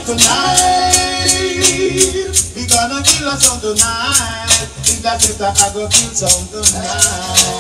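Reggae music played over a sound system: a steady high shaker beat about four times a second under a pitched melody and a steady bass line.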